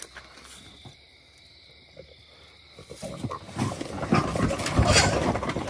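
Harsh, rapid animal growling at close range, starting about three seconds in and getting louder toward the end.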